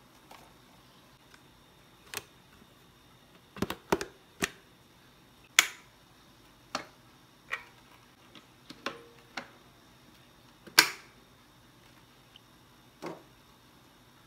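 Sharp plastic clicks and knocks from the parts of a Deerma DX700 stick vacuum being handled, unlatched and pulled apart: the floor brush head and the dust box. The clicks come irregularly, with a quick cluster about four seconds in and the loudest snap near eleven seconds.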